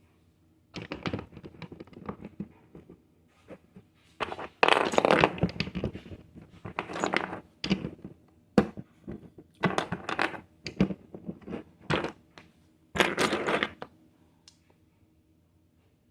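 Plastic Lego pieces being handled: irregular bursts of rattling and rustling with a few sharp clicks. The sound stops near the end.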